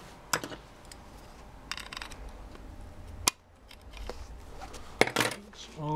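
Small pliers clicking on metal as an E-clip is worked onto the central shaft of a BMW motorcycle ignition's Hall-effect trigger can: a few sharp clicks, two of them close together near the end, with light handling rustle in between.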